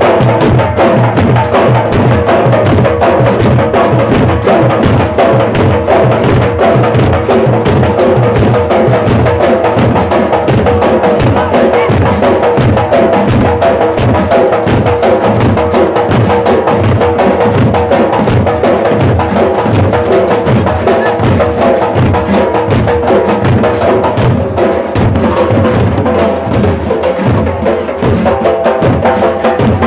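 A group of large steel-shelled dollu drums beaten with sticks, playing a loud, fast, continuous rhythm together, in the Karnataka dollu folk drumming style.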